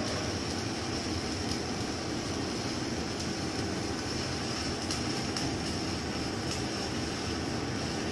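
Shielded metal arc (stick) welding arc burning steadily on an H11 hot-work tool steel ram during a multi-pass crack repair. It is an even hiss with small crackles throughout.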